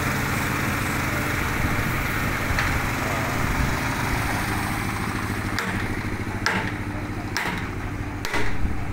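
Six-cylinder diesel engine of a Komatsu PC200-8 excavator idling steadily. From about halfway through, several sharp knocks sound over it.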